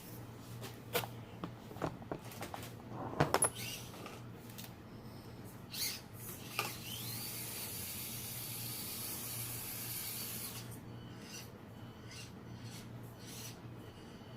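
Small 1/24-scale RC rock crawler (Axial SCX24 Deadbolt) clambering over an obstacle: scattered clicks, knocks and scrapes of its tires and chassis, a cluster about three seconds in. Its small electric motor whines steadily for about four seconds midway.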